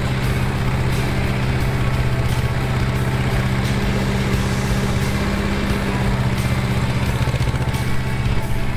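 Yanmar SV05 mini excavator's small diesel engine running steadily at a constant pitch.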